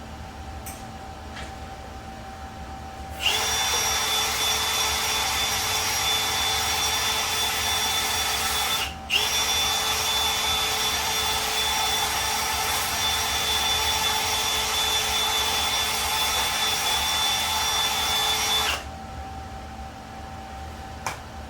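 Welding arc laying a bead on the swingarm: a steady hiss with a high whine. It starts about three seconds in, breaks for a split second, runs about ten seconds more and cuts off abruptly.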